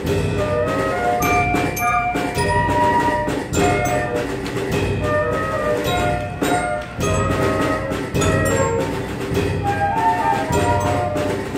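School concert band playing live: flutes and other wind instruments carry a moving melody over regular drum hits from the bass drum and drum kit.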